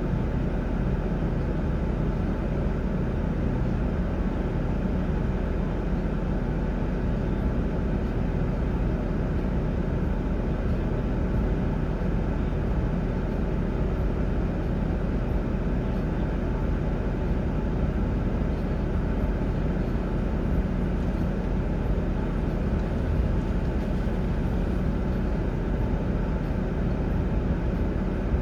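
Steady low rumble of a running vehicle, unchanging throughout.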